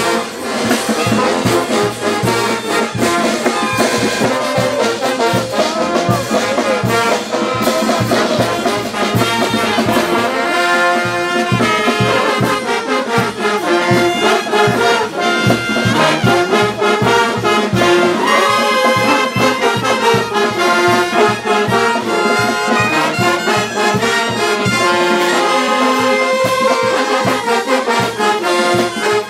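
A live festival band playing, with horns carrying a melody over a steady beat.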